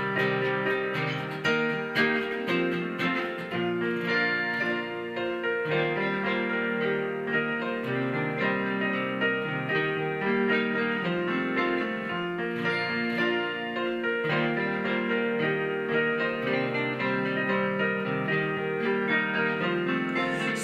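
Acoustic guitar and a keyboard playing a piano sound together in an instrumental passage of a song, with plucked guitar notes over held piano chords.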